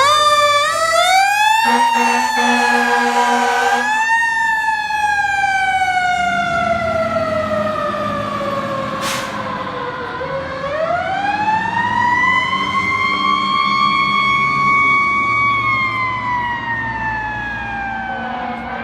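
Fire engine's Federal Q mechanical siren winding up, with an air horn blast over it from about two to four seconds in. The siren then slowly winds down, spins back up about ten seconds in, and winds down again near the end; a brief click sounds about nine seconds in.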